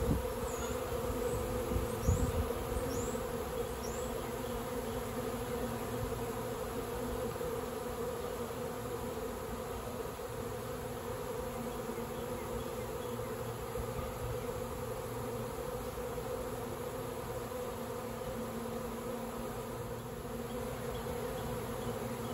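Steady, dense buzzing hum of a honeybee swarm in flight: tens of thousands of bees circling and moving into a stack of empty bee boxes set as a swarm trap, heard from right among the flying bees.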